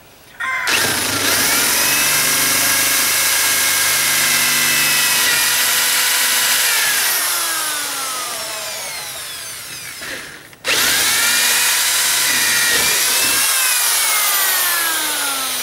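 Power drill boring through a boat's wooden transom boards with a dull bit. The motor spins up and runs, slowing with a falling pitch for its last few seconds, stops briefly, then starts again and runs on, slowing once more near the end.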